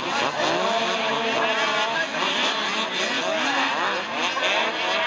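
A pack of racing snowmobiles accelerating hard off the start together, many engines revving at once, their pitches rising and falling over one another.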